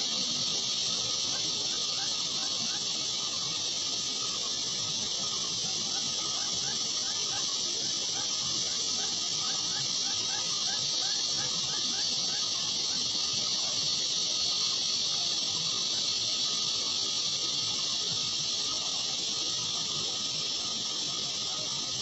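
A steady high-pitched hiss, with faint quick chirps repeating a few times a second underneath.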